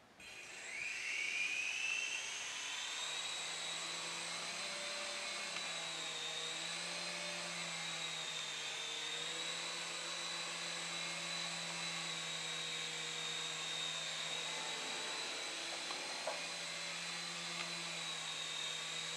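Syma S107 coaxial micro RC helicopter's small electric motors spinning up, the whine rising in pitch over the first couple of seconds, then holding a steady high whine as it flies. A lower hum joins about three seconds in.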